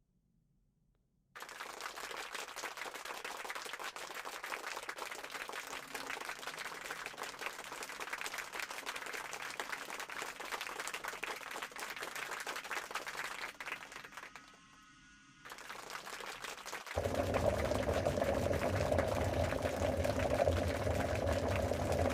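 Dense crackling sizzle, like food frying in hot oil, starting about a second in and running for some thirteen seconds before briefly dropping away. Near the end a louder, steady mechanical hum with a low pitched drone sets in.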